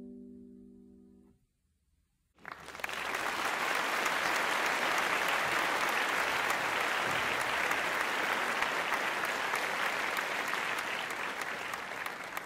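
A piano chord rings and dies away, then after about a second of silence applause breaks out and goes on steadily.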